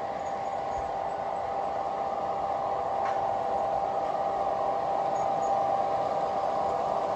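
G scale model train running on its track: a steady hum with a whine from the locomotive's motors and rolling wheels, growing slightly louder as the locomotive approaches.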